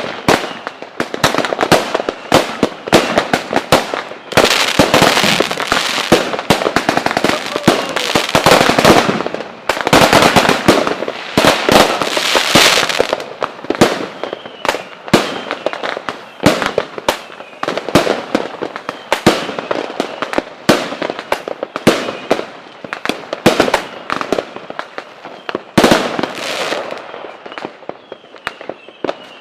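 Fireworks display: rapid, overlapping bangs and crackling from aerial shell bursts, densest in two long salvos in the first half, with one loud bang near the end.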